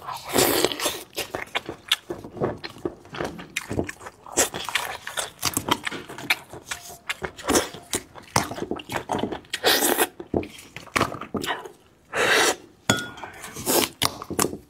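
Close-miked cracking, clicking and wet tearing as gloved hands pry apart a braised spiced sheep's head, in an irregular run of sharp crackles with several louder bursts.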